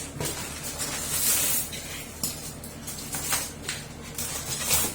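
Packing foam inserts being pulled out of the printer's cardboard box: scraping, rustling and squeaking of foam against cardboard, with a few short knocks.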